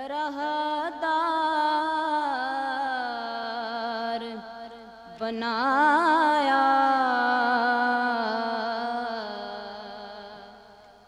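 A woman reciting a naat unaccompanied, singing long held, ornamented notes with a wavering pitch in two drawn-out phrases. The second phrase begins about five seconds in and fades away near the end.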